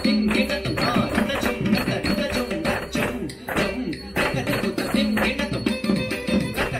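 Carnatic song accompaniment for a Bharatanatyam dance, with a steady beat and the jingle of dancers' ankle bells (salangai) keeping time.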